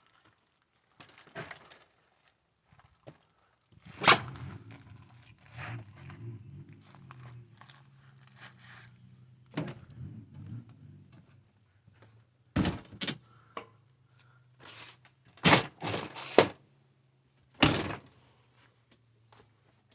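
A series of sharp knocks and thuds. The loudest comes about four seconds in, and several more follow in quick succession near the end, over a steady low hum that starts with the first loud knock.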